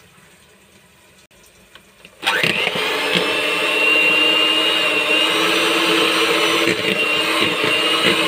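Westpoint electric hand mixer switched on about two seconds in, then running steadily with a held whine as its beaters whip cold cream.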